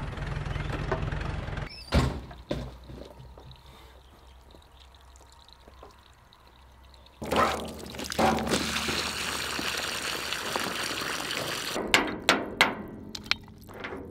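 Tractor engine running briefly, then a single thunk about two seconds in. After a quiet stretch, water from a garden hose starts up about seven seconds in, pouring and splashing against a steel barrel and trickling out of its drain opening, with several sharp knocks near the end.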